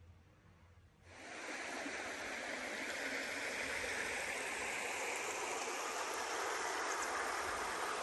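Running water of a stream, fading in after about a second and then holding as a steady, even rush.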